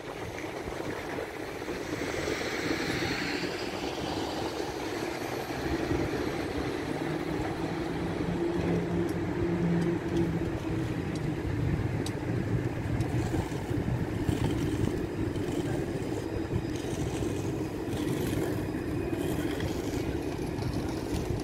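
Tram running, a steady low hum that grows louder from about six seconds in, with a rising whine near the start and a run of sharp clicks in the second half.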